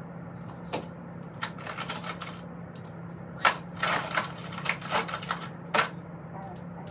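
Irregular plastic clicks and rattles of electrical connectors being unclipped from the ignition coils on a Mercedes-AMG M156 V8, coming several in quick succession in the second half, over a steady low hum.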